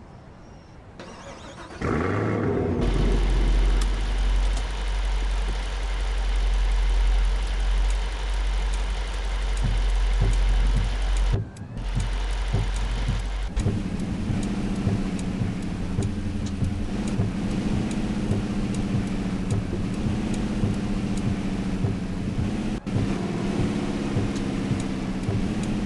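Toyota Tundra pickup's engine starting about two seconds in, then running with a deep, steady rumble. About halfway through this settles into an even engine note with a clear pitch.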